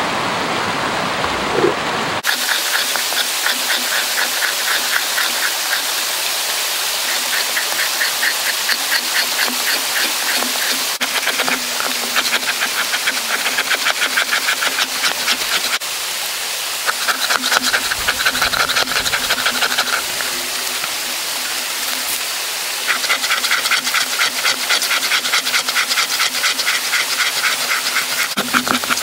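A two-handled fleshing tool scraping a wet, egg-tanned deer hide on a fleshing beam to break up and work off the leftover dermis. The strokes come in quick, repeated runs, easing off a couple of times along the way.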